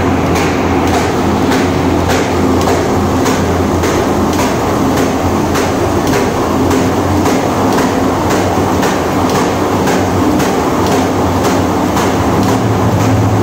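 Paper bag making machine running: a steady mechanical clatter with a sharp rhythmic knock about twice a second, over the hum of its belt-driven electric motor.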